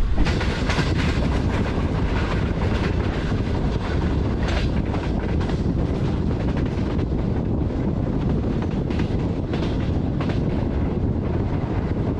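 Green Line Express passenger train running along the track: a steady heavy rumble with irregular clacks as the wheels cross rail joints.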